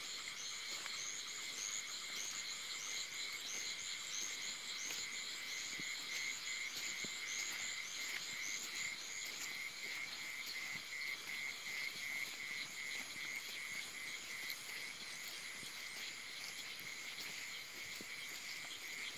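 Night chorus of frogs and insects: a steady pulsing trill throughout, joined by rapid high chirps repeating several times a second that fade out about halfway through.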